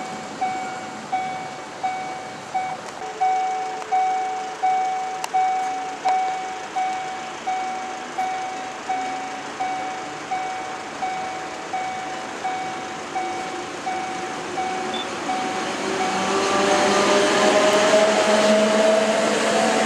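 Level-crossing warning bell striking steadily, about one and a half strikes a second. About sixteen seconds in, an MOB GDe 4/4 electric locomotive draws near, its traction motors whining and rising in pitch over the rumble of wheels, and becomes the loudest sound.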